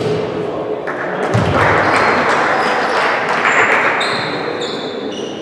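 Spectators at a football match cheering and shouting. The noise swells about a second and a half in and fades after a couple of seconds, with thumps of the ball.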